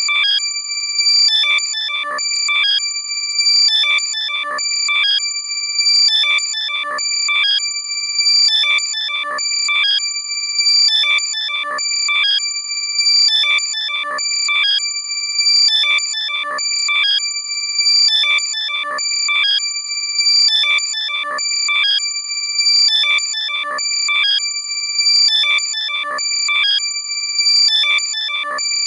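Loud electronic locator alert played to find a lost AirPod: steady high-pitched tones with a fast chirping pattern over them, repeating about every 1.3 seconds.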